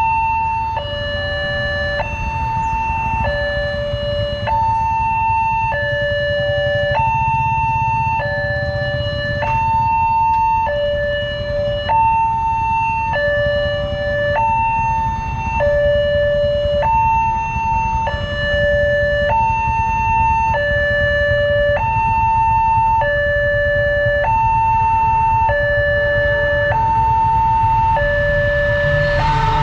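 Railway level-crossing warning alarm sounding an electronic two-tone signal, a higher and a lower tone alternating about every three quarters of a second, warning that a train is approaching. Motorcycle engines idle underneath, and the rush of the arriving train starts right at the end.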